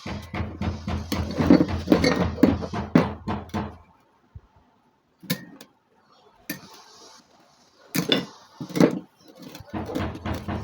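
Metal clinking and knocking from hand work on door-hinge parts: a rapid run of small strikes for about four seconds, then a pause broken by a few separate knocks.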